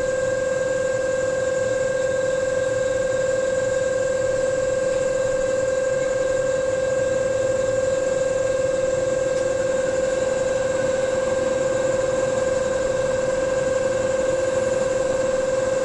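JNR 583 series electric train standing at the platform, its auxiliary equipment running with a steady, even whine over a low hum and no change in pitch.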